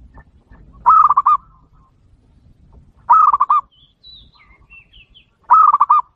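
Zebra dove (perkutut) cooing three times, about two seconds apart, each call a quick run of about five rolling notes. A smaller bird chirps faintly between the second and third calls.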